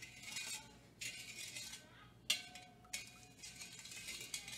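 A spoon stirring sugar water in a stainless steel mixing bowl: a run of gritty scraping strokes against the metal. About halfway through comes one sharper clink that rings briefly.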